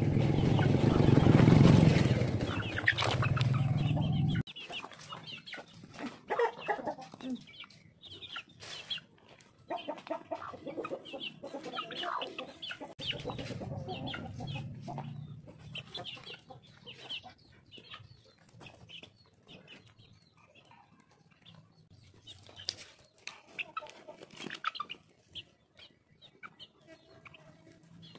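Chickens clucking in short, scattered calls while pecking at raw fish guts, with many sharp little taps of beaks striking the bowl and ground. A loud low rumble covers the first four seconds and cuts off suddenly.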